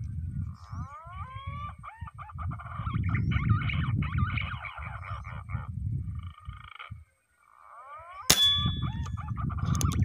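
Whistled, wavering calls of green pigeons (punai), repeated over a low rumble. About eight seconds in comes a single sharp crack with a brief metallic ring, the shot of the hunter's rifle.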